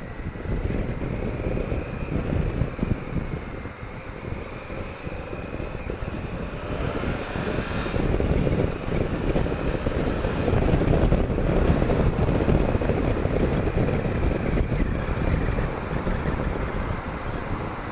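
Wind buffeting on the microphone over a Honda Africa Twin CRF1000L motorcycle running at road speed in traffic, louder from about halfway through.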